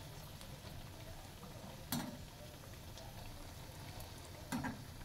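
Spinach pakoras frying in mustard oil in a metal kadhai: a faint, steady sizzle with small crackles as a slotted spoon turns them. The spoon clinks against the pan twice, about two seconds in and near the end.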